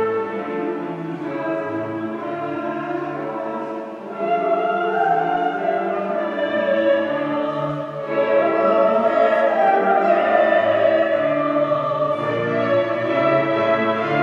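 A mixed choir sings classical choral music with a chamber string orchestra accompanying it. The music swells louder about eight seconds in.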